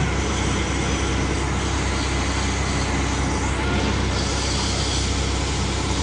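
Trailer concrete pump and concrete mixer truck running while the truck unloads concrete into the pump's hopper: a steady low engine hum under an even machine noise that does not change.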